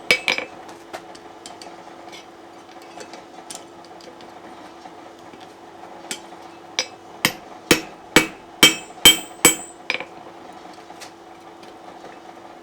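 Hand hammer striking steel on an anvil while forging a shoulder: a few blows at the start, light scattered taps, then a run of about eight strong blows about two a second in the second half. A steady hum sits underneath.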